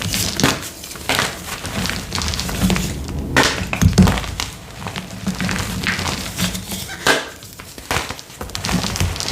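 Blocks of gym chalk being crushed and crumbled by hand, with several sharp crunches and powdery crumbling in between.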